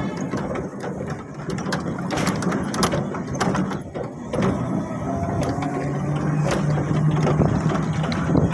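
A vehicle jolting along a rutted sandy dirt road, its body rattling and clattering with many sharp knocks. A steady low hum joins about halfway through.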